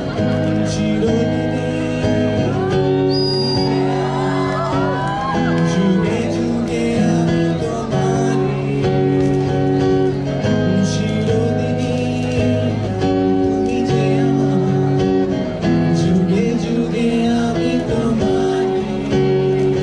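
Acoustic guitar strumming chords, changing chord every two to three seconds.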